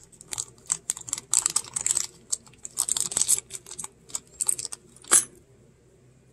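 A small clear plastic bag crinkling and crackling in the fingers as silver coins are worked out of it, with light clicks of the coins against each other and one sharp loud click about five seconds in.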